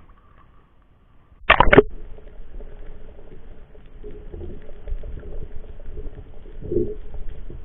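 A camera plunging under the sea surface: one short loud splash about one and a half seconds in, then muffled underwater rushing and bubbling with a steady hum.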